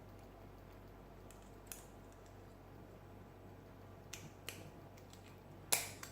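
A few sharp metallic clicks as the small retaining clip is worked off the back of a Carbine 5-pin mortise lock cylinder. There is a faint click, a pair a couple of seconds later, and a loud snap near the end as the clip lets go.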